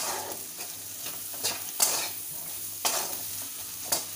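Wooden spatula stirring diced potato and brinjal in a kadai, the hot oil sizzling steadily, with several sharp scrapes of the spatula against the pan about once a second.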